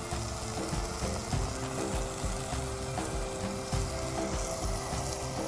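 Sliced onion, tomato and chillies sizzling steadily as they fry in oil in a pot.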